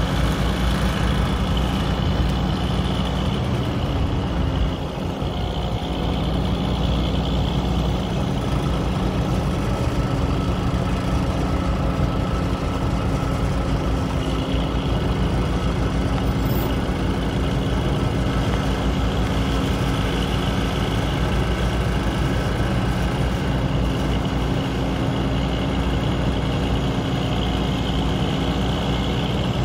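The International boom truck's DT 366 diesel engine running steadily, powering the aerial boom as it is operated.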